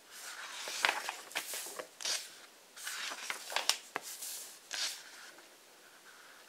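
Pages of a 320-page hardcover book being turned by hand: paper rustling and swishing in three quick bouts, with a few crisp slaps as the pages land.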